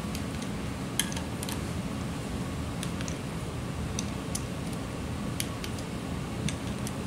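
Torque wrench clicking as the camshaft cap bolts on a Triumph cylinder head are tightened to spec. About ten sharp metallic clicks come singly or in quick pairs over a steady low shop hum.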